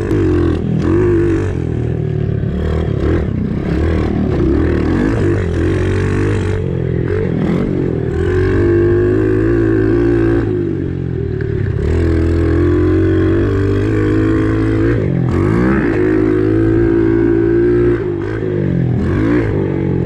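Kawasaki KLX110 pit bike's small four-stroke single-cylinder engine running under way on a dirt track, revving up and backing off as the rider works the throttle. The revs drop briefly about halfway through and again near the end.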